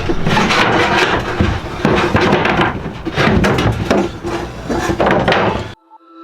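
Irregular knocking and scraping of wood being worked, stopping abruptly near the end.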